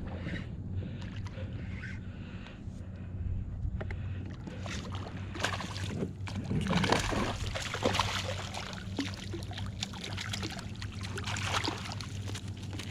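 Water splashing and sloshing, busiest in the middle and second half, over a steady low hum.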